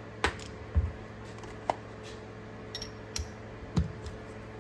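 A ratchet and chrome socket extensions clinking and clicking as they are handled and fitted together: about half a dozen separate sharp metal clicks and knocks over a faint steady hum.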